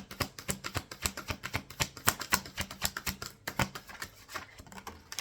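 Tarot or oracle cards being shuffled by hand: a quick, irregular run of sharp card clicks and slaps, several a second, thinning out near the end.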